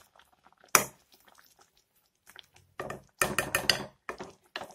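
A steel spoon clinking and scraping against a kadai as coconut chutney is stirred in it: one sharp clink about a second in, then a quick run of clinks and scrapes a couple of seconds later.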